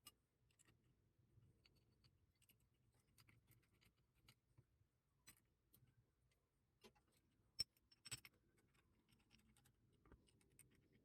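Near silence with faint, scattered small metal clicks and taps as short cap screws and vise jaw plates are handled and fitted, with one sharper click about seven and a half seconds in.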